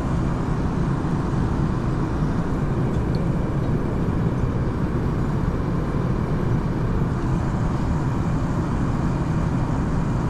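Airliner cabin noise in cruise, heard from inside the cabin: a steady low rumble and rush of air.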